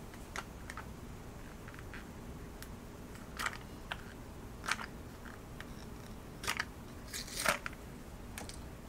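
Crinkling and crackling of a new spice container's seal or wrapper being opened by hand, in scattered clicks with a few louder crackles through the middle and second half.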